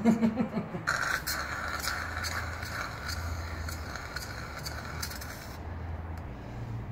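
Vacuum fluid extractor sucking old, jelly-thick brake fluid out of a motorcycle's front brake reservoir through a tube: a steady hiss with crackles. It starts about a second in and cuts off sharply a little after five seconds.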